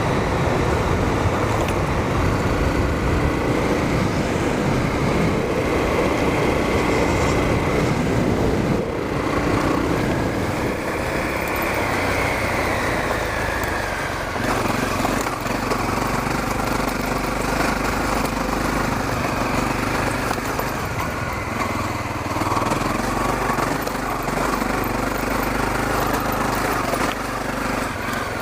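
Honda CRF250L dirt bike's single-cylinder four-stroke engine running while being ridden off-road, its note shifting about halfway through.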